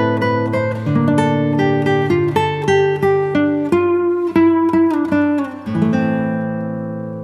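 Background music of acoustic guitar picking: a run of plucked notes over a low bass line, then a final chord left ringing and fading away near the end.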